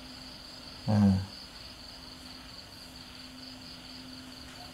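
Crickets trilling steadily at a high pitch in the background, with a faint steady low hum. About a second in, a single short syllable of a man's voice through the microphone.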